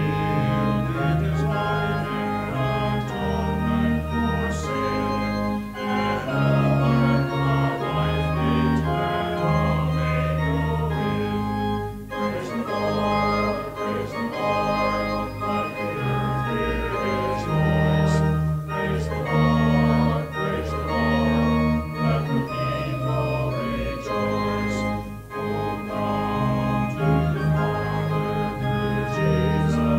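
Organ playing slow, held chords with sustained bass notes.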